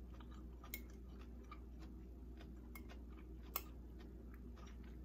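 Quiet chewing of crunchy shredded-cabbage slaw: a few faint, scattered clicks and crunches over a low steady hum.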